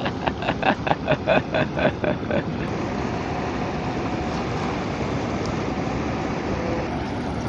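Shallow sea water washing and lapping at the shore with wind, a steady noisy wash. It opens with a quick run of about ten short pulses in the first two and a half seconds.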